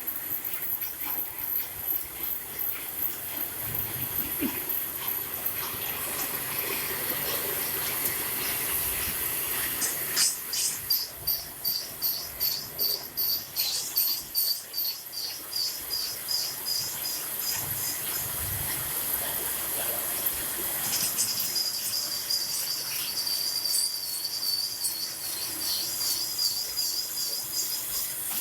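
Metal-cutting lathe making a parting-off cut. The parting tool squeals high-pitched, first in rapid pulses of about two to three a second, then as a steady wavering squeal in the later part.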